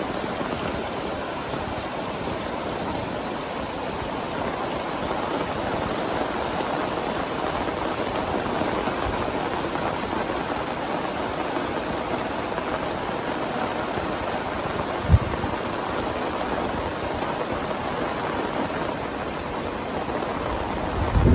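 Very heavy rain pouring steadily in an even, dense hiss. A single sharp low thump sounds about 15 seconds in, and a low rumble begins right at the end.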